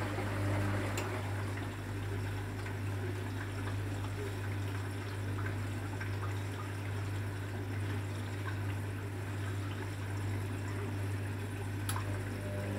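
Hotpoint WMA30 washing machine in its final rinse, with the drum paused between tumbles: water trickles and splashes in the drum over a steady low hum. A click comes about a second in, as the drum motor's whine stops, and another near the end, just before it starts again.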